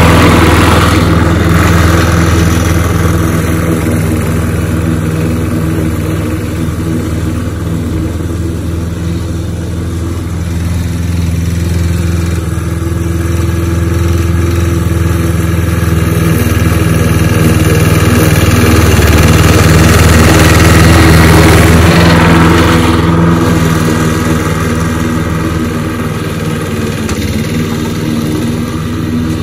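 John Deere JS20 walk-behind lawn mower's engine running steadily while mowing grass, fainter and then louder as the mower moves away and back, loudest about two-thirds of the way through. The owner calls the engine a little worn out but still running well.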